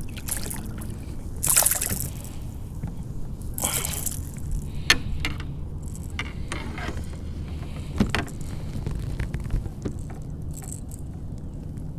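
A hooked bass being fought in beside a kayak: a few short splashing bursts in the first four seconds, then several sharp clicks and knocks from handling the fishing gear and kayak, over a steady low rumble.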